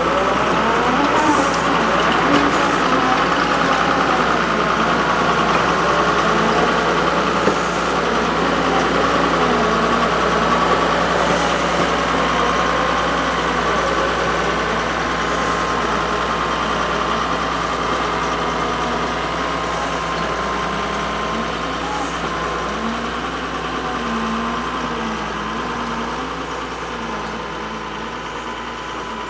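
Large excavator engine running steadily, with faint wavering voices over it; it fades out near the end.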